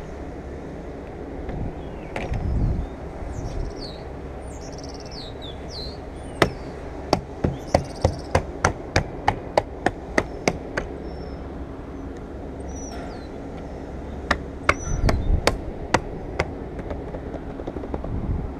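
Light, sharp taps, about two to three a second for some four seconds, then a shorter run a few seconds later: the windshield moulding being tapped into place. Birds chirp a few times early on.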